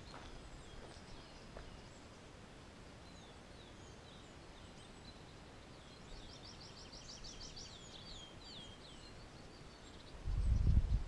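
Small forest songbirds singing: scattered short whistled notes, then a quick trill of rapid notes in the middle followed by a few slower falling notes. A louder low rumble starts near the end.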